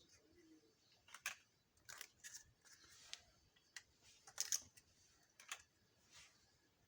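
Light, irregular clicks and taps of small plastic toy kitchen pieces being handled, about a dozen in all, the sharpest pair about four and a half seconds in.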